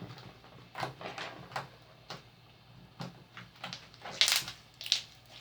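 Homemade slime being kneaded and squeezed by hand: an irregular run of short sticky clicks and squelches, with two louder ones about four and five seconds in.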